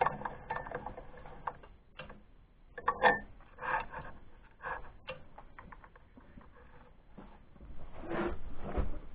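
Scattered clicks and light metallic knocks from hand adjustment of a mini lathe's slides and handles, with louder clunks about three seconds in and again near the end.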